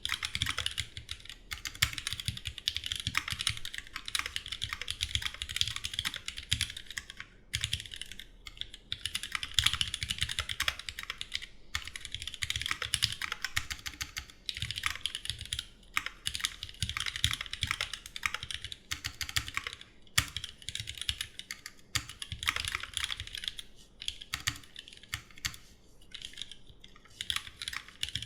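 Continuous typing on a Duck Jetfire mechanical keyboard with GMK keycaps and lubed, rebuilt vintage Cherry MX Black linear switches. Fast runs of keystrokes are broken by brief pauses between words.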